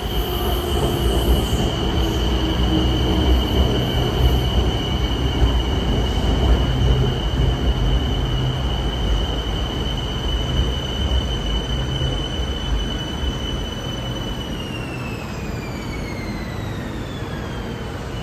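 BTS Skytrain EMU-A2 electric train pulling into the platform: a low running rumble with a high steady whine that glides down in pitch near the end as the train slows.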